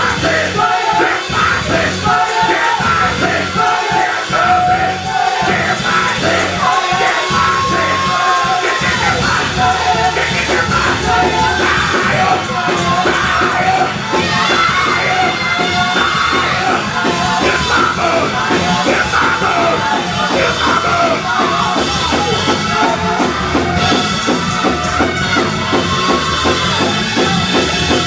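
Live Pentecostal praise-break music: a drum kit and keyboards play under voices singing and yelling into microphones.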